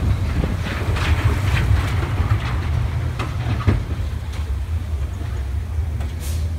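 Roller-coaster mine-train cars rolling on steel track: a steady low rumble with irregular wheel clacks, which thin out after about four seconds. A short hiss comes near the end.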